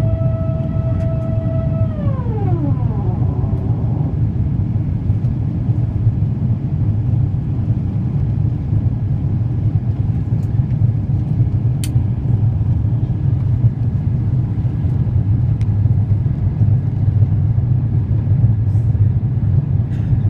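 Steady low cabin roar of an Airbus A350-900 climbing after takeoff, heard inside the cabin. A high whine with overtones winds down in pitch and fades about two to three seconds in.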